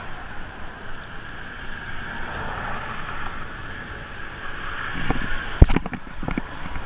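Steady rumble of road traffic. About five seconds in it gives way to close handling noise: a few knocks and one sharp thump, the loudest sound, as a hand grabs the spinning rod and reel right by the camera when a fish takes the bait.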